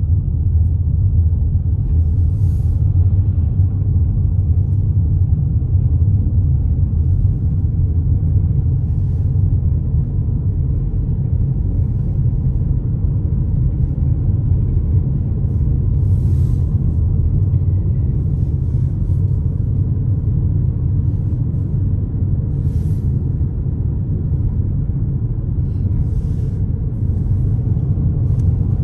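Steady low road and engine rumble heard inside a moving car's cabin, with a few faint ticks now and then.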